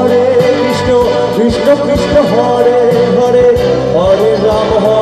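Live band playing an instrumental passage: a lead melody with sliding, bending notes over bass guitar, keyboard and a steady cymbal beat.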